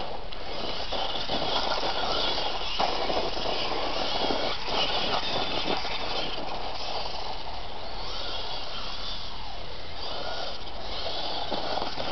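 1/16 Traxxas E-Revo VXL RC truck driving on loose dirt: the electric motor's whine and the tyres scrabbling over dirt and grit, the whine coming and going as it accelerates and turns.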